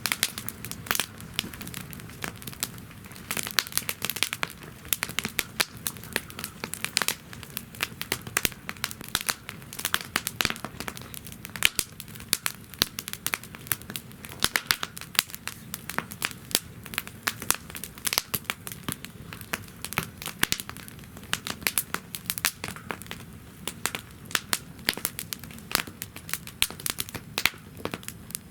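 Wood fire crackling in a fire-pit stand: a dense, irregular run of sharp snaps and pops over a low, steady rush of flame.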